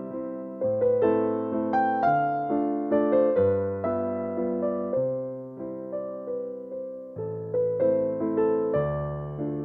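Background music: a gentle piano melody played note by note, each note fading after it is struck.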